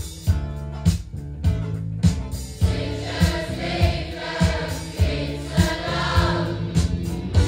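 Music with singing played back through a pair of Preludium Plus floor-standing loudspeakers: a steady drum beat, a little under two beats a second, with voices singing from about two and a half seconds in until near the end.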